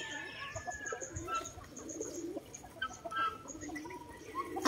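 Chickens clucking among a mixed flock of yard birds, with short scattered calls overlapping.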